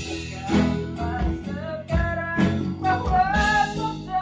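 Small band rehearsing unplugged: acoustic guitar and bass guitar playing a song, with a male voice singing the melody from about two seconds in and a regular knock on the beat.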